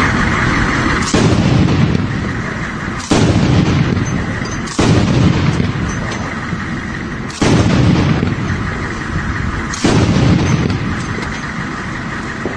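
Five heavy blasts like artillery fire or explosions, irregularly spaced a few seconds apart, each starting suddenly and fading away in a long rolling tail.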